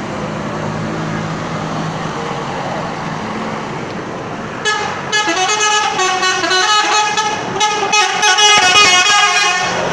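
Indonesian bus 'telolet' horn, a multi-tone musical air horn, playing a stepped tune for about five seconds, starting about halfway through. Before it, the bus's engine running steadily.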